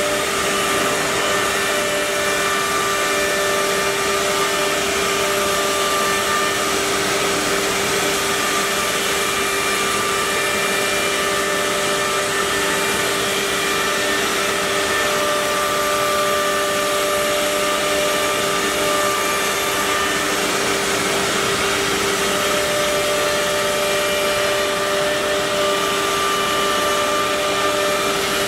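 CA-1325 four-spindle CNC router running: a steady whine of its spindle motors over an even rushing noise, with no change across the stretch.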